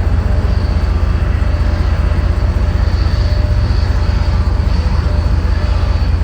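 Boeing 777 jet engines running, a steady rumble with a faint high whine, under heavy wind buffeting on the microphone.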